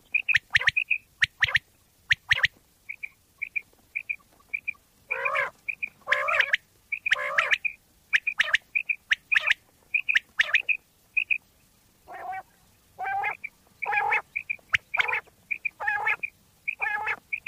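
Common quail calling: short high clear notes repeated in quick runs, mixed with longer, harsher raspy calls and a few sharp clicks.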